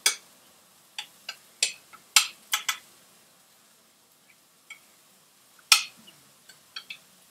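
A serving utensil clinking and scraping against a glass dish as food is scooped out for plating: a series of short, sharp clinks at irregular intervals, bunched in the first few seconds and again near the end.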